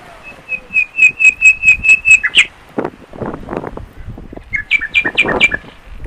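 Zebra finch calling: a quick run of about nine short, evenly spaced notes, then a shorter run of about five near the end, with scratchy rustling in between.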